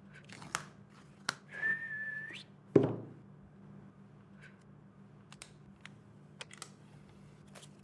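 A short whistle: one held note that sweeps sharply upward at the end, followed at once by a single loud thump. After it, faint clicks and paper rustles as the packaging is handled.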